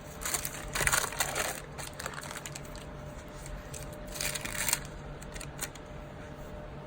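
Paper rustling and crinkling as planner pages and sticker sheets are handled: a longer burst near the start and a shorter one about four seconds in, followed by a few light clicks.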